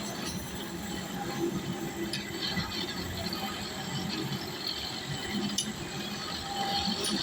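Construction site work noise: a steady mechanical din with a few sharp metallic clicks.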